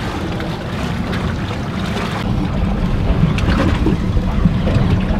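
Steady low rumble of wind buffeting the microphone on an open fishing boat, with water washing against the hull.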